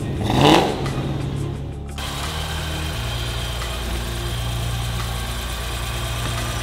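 Supercharged Chevrolet LS3 V8 revved once about half a second in, its pitch rising, then running steadily.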